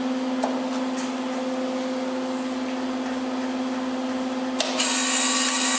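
Everlast Power i-MIG 160 welder running with a steady hum. About four and a half seconds in there is a click, then a louder, higher whir as the wire feed motor drives the wire through the drive rolls toward the gun.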